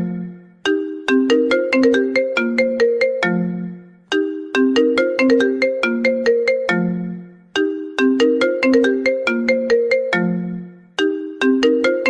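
iPhone ringtone playing: a quick run of bright, struck notes that ends on a low note left to fade. The same phrase repeats about every three and a half seconds.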